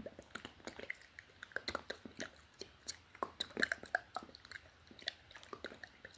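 Close-miked ASMR mouth sounds: an irregular run of small wet lip and tongue clicks, several a second.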